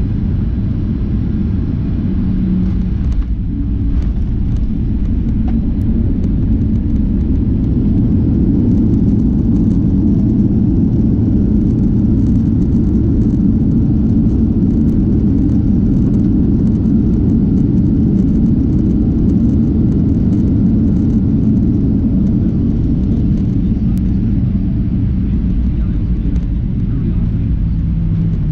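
Cabin noise of a Boeing 737-800 rolling on the ground after landing: a steady low rumble of its CFM56-7B engines and the wheels, swelling slightly a few seconds in, with faint light rattles.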